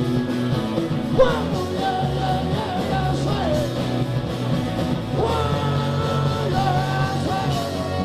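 Live rock band playing, with a sung melody sliding in pitch over a steady bass and guitar backing.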